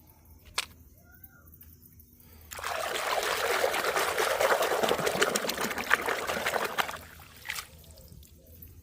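Water pouring steadily for about four seconds, over toy cars being washed. It starts abruptly a couple of seconds in and stops near seven seconds. A single sharp click comes before it.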